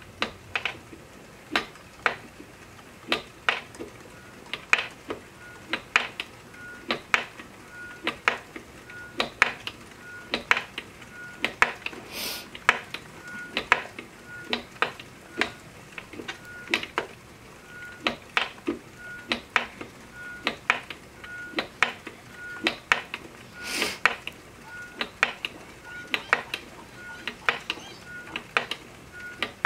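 Wooden spinning wheel running as wool is spun: a steady patter of clicks and clacks from the turning wheel and treadle, about two a second. From about seven seconds in, a short high tone repeats about once a second, and two brief hisses come near the middle and near the end.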